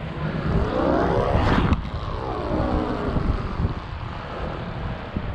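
Dual-line stunt kite (Premier Widow NG) buzzing as it swoops, the pitch climbing to a peak about a second and a half in, then falling away, and rising again near the end. Wind rumble on the microphone underneath.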